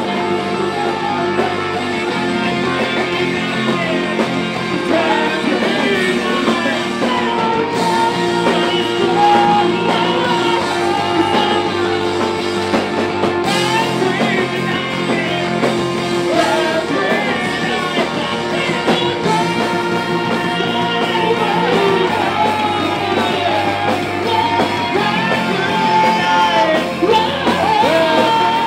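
Rock band playing live: sung and shouted vocals over electric guitar and drums.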